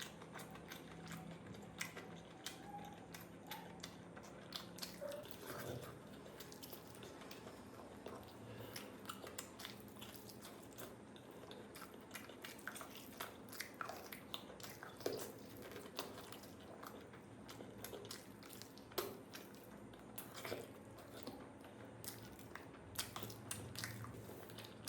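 Close-up eating sounds: mouth chewing, smacking and occasional crunches from someone eating a curry-and-rice meal with fried fish, in an irregular stream of short, soft clicks.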